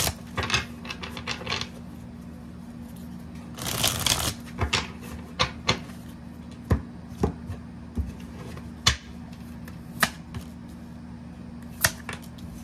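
A deck of tarot cards shuffled by hand: brief rustling flurries of cards near the start and again about four seconds in, then a string of single sharp clicks and snaps as the cards are handled. A steady low hum runs underneath.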